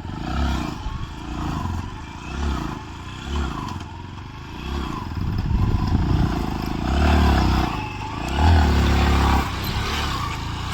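Vehicle engine revving in repeated bursts, its pitch rising and falling, loudest in the second half, with some clatter.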